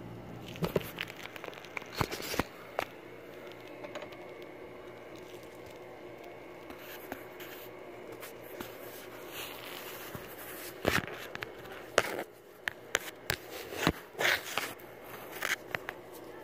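Scattered metallic clicks, knocks and scrapes of a socket on a long extension bar being worked onto the drive-belt tensioner pulley bolt. They come in two clusters, one in the first few seconds and a denser one in the second half.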